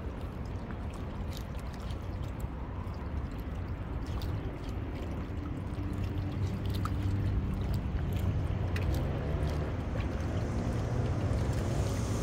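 Seawater washing and gurgling among shoreline rocks over a low rumble, with scattered faint clicks; the sound grows a little louder about halfway through.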